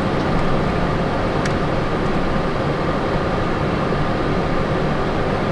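Steady cockpit noise of a Cessna Citation Sovereign in the climb: its turbofan engines and the airflow over the airframe make a continuous, even rush.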